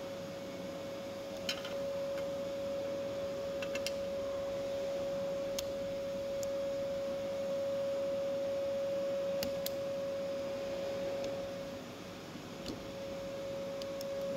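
A steady hum held on one pitch, with several faint, sharp metallic clicks as pliers work a spring hose clamp.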